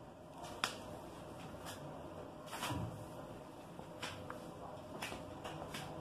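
Indesit washer-dryer running a wash with its drum turning. The tumbling load makes irregular sharp clicks, the sharpest near the start, and a heavier thud about halfway, over a faint steady machine hum.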